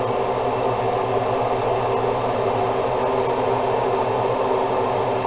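A fan running steadily: a constant whir and hiss with a low hum.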